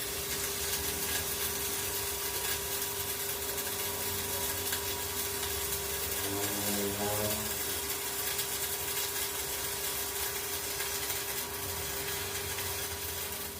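Stick welding with a 3.2 mm electrode on a small VAC mini inverter welder: the steady hiss of the arc burning. The machine handles the rod easily.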